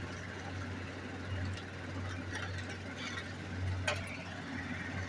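Steady low background hum, with a few faint light clicks, the clearest about four seconds in.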